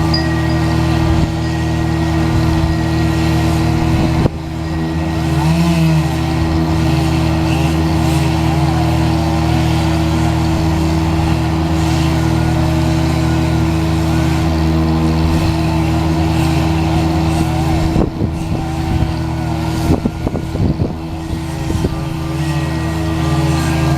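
A large engine on tree-removal equipment running steadily at high speed, its pitch wavering a little under load, briefly dropping about four seconds in and again a few times near the end.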